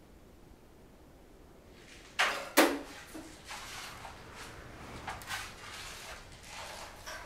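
A heavy cassette deck being moved and set down on a tabletop: two sharp knocks a little over two seconds in, then softer scraping and clattering as it is handled.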